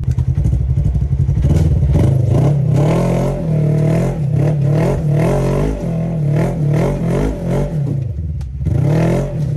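Side-by-side UTV engine revving up and down in repeated throttle blips, with rattling and sharp knocks mixed in.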